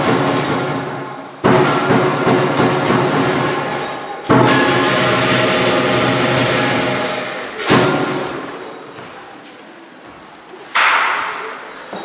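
Chinese lion dance percussion: four loud crashes about three seconds apart, each ringing out and slowly fading.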